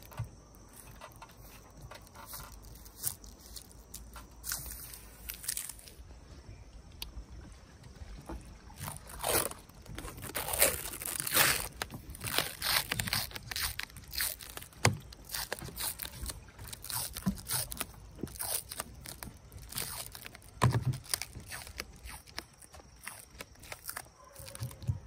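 Clear plastic film and tape being handled and trimmed by hand over a roof-mounted solar panel: irregular crinkling, scraping and crackling, busiest around the middle.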